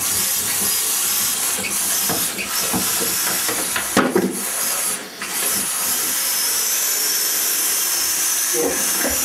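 Sink faucet running, a steady rush of water with a brief dip about five seconds in.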